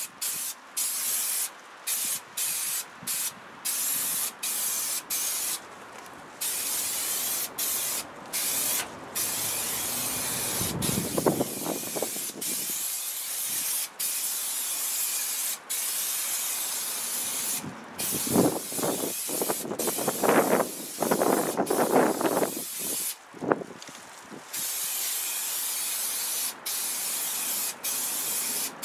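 Aerosol spray adhesive hissing in many short bursts with brief breaks between them. Foil bubble insulation rustles and crinkles twice, about a third of the way in and again around two-thirds through.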